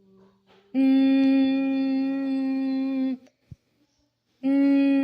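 A child humming two long notes at one steady pitch, each about two seconds, with a short gap between.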